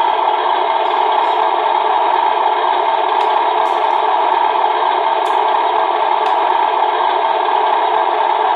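Diesel truck engine sound from a Beier USM-RC-2 RC sound module, played through the model truck's small speaker and running steadily, with a few faint clicks.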